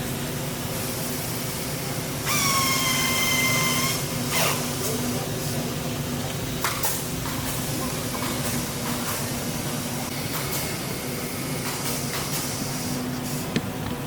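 Workshop machinery hum running steadily under a loud whistling hiss of air that lasts under two seconds, a couple of seconds in. Scattered light clicks and knocks of work on the pieces follow.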